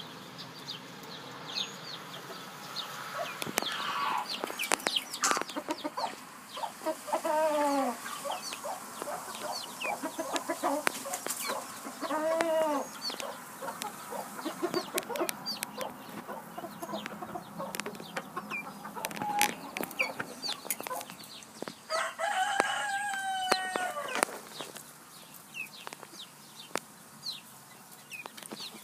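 Chickens clucking and pecking, with many sharp taps on a plastic dish of mealworms. A rooster crows a few times, the longest crow about three-quarters of the way through.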